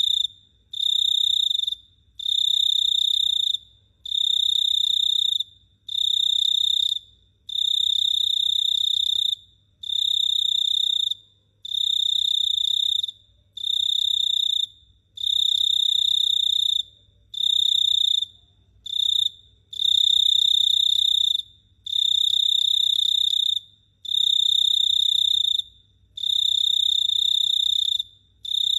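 A single cricket chirping in loud, high-pitched trills, each about a second long and separated by short pauses, repeating steadily about once every second and a half.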